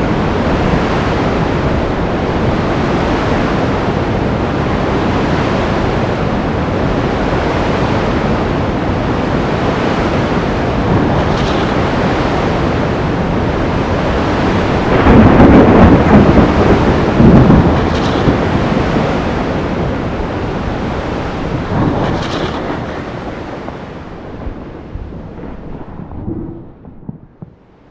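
Sea storm ambience: a long rumbling roll of thunder over a steady wash of rain and surf noise. It swells loudest about halfway through, then fades away near the end.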